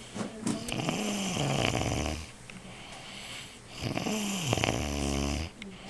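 A man snoring in his sleep: two long snores about three and a half seconds apart, each with a deep rumble and a pitch that rises and falls.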